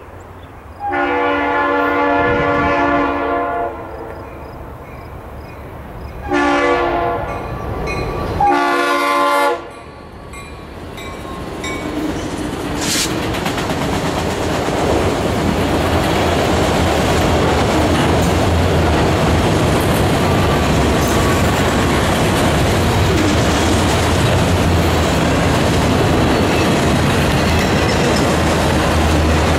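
Norfolk Southern diesel freight locomotive sounding its multi-chime air horn in three blasts, the first the longest, as it approaches a grade crossing. The train then rolls past with a steady rumble of engines and wheels, and autorack cars clatter by over the rail joints.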